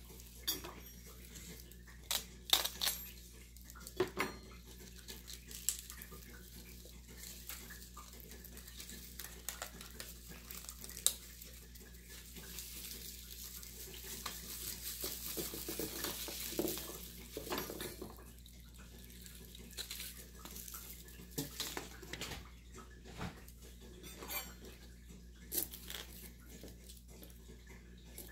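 Scattered light clicks and knocks of a knife and small pearl onions on a plastic cutting board, with a soft rustle around the middle as the onions' mesh bag and paper label are handled.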